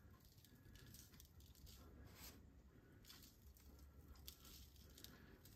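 Faint, scattered light patters and rustles of coarse foam turf crumbs sprinkled by hand onto a model tree's branches and a newspaper below.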